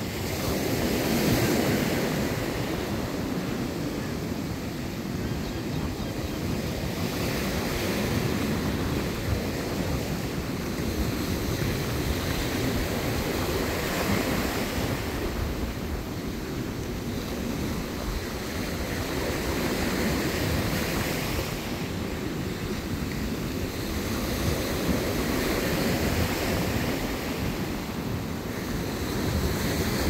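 Ocean surf breaking on the beach, a steady wash that swells and fades about every six seconds, with wind buffeting the microphone.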